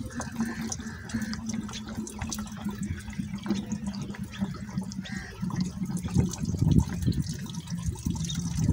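An HH Dabung tractor's engine idles steadily while water gurgles and splashes in the open radiator filler neck, though the engine is cold. Coolant is being pushed out of the radiator, which the owner puts down to a leaking head gasket.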